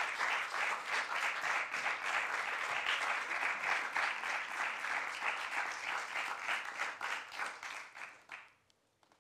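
Audience applauding with dense, many-handed clapping that dies away about eight and a half seconds in.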